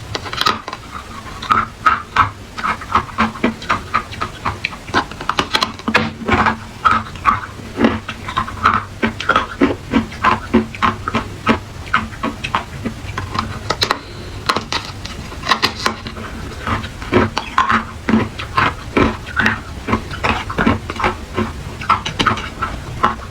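Hard clear ice being bitten and chewed close to the microphone: a continuous run of sharp crunches, about two to three a second.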